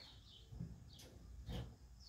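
Faint high bird chirps, each dropping in pitch, with two dull knocks about half a second and a second and a half in.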